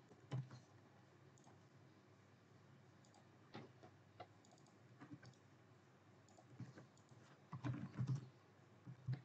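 Faint, scattered keystrokes on a computer keyboard: short clicks a few at a time, with pauses between them.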